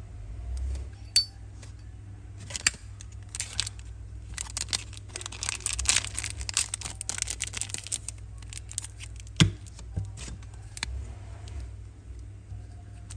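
Zippo lighter being handled: a run of sharp metal clicks and clinks, thickest in the middle, with a couple of louder single clicks near the start and about two-thirds in.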